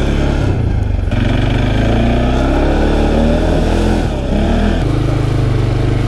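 Quad bike (ATV) engine running under throttle while being ridden over a dirt track, its note rising and falling as the rider works the throttle.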